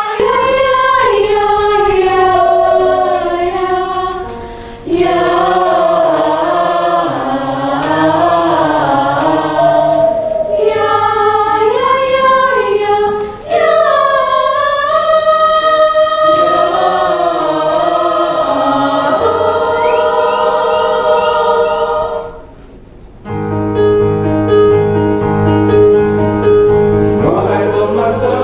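Mixed choir of women's and men's voices singing a song in harmony, in phrases with brief breaks about 5, 13 and 23 seconds in.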